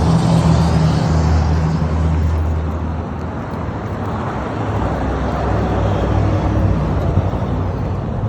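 Steady low rumble of a running engine with outdoor traffic-like noise; its low hum shifts in pitch about three seconds in.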